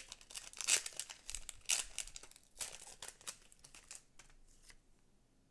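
Foil Pokémon trading-card booster pack being torn open, its wrapper crinkling and ripping in a quick run of sharp crackles that die away after about four seconds.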